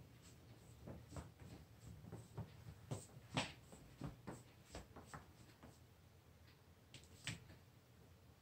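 Near silence broken by faint, scattered light taps and clicks of handling as a plate and camera are carried, with a few louder taps about three and a half and seven seconds in.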